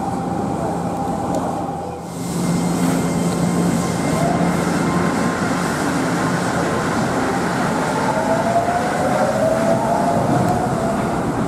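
Osaka Metro New Tram rubber-tyred automated guideway train running. A steady hum with a held tone gives way, about two seconds in, to rolling noise, and over it an electric motor whine rises in pitch as the train accelerates.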